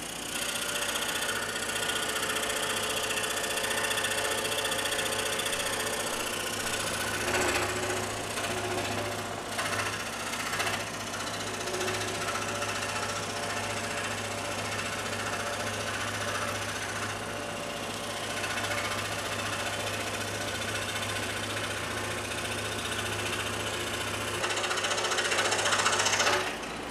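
Scroll saw running steadily, its blade cutting into a 1.5-inch square wooden post. The sound gets louder shortly before it cuts off near the end.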